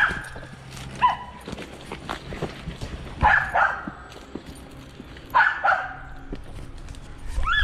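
Squirrel-hunting cur barking treed: a single short bark about a second in, then barks in pairs every couple of seconds. This bark tells the hunter a squirrel is up the tree.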